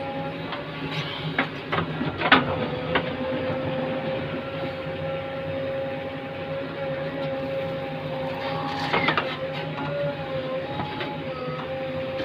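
JCB Eco Xpert backhoe loader running at work, a steady engine drone with a steady whine that dips in pitch briefly a few times. A few sharp knocks come about two seconds in and again near nine seconds.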